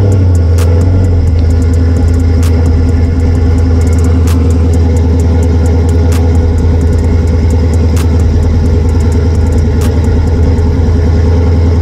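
Cammed Dodge Charger R/T's 5.7-litre Hemi V8 idling steadily, just after being started.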